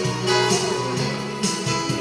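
Instrumental music with a steady beat, percussive hits coming about twice a second over sustained instrument notes.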